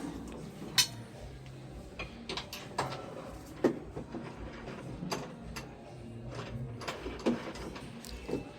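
Irregular sharp clicks and clinks of metal tools and parts being handled while a washing machine is worked on, over a low steady hum.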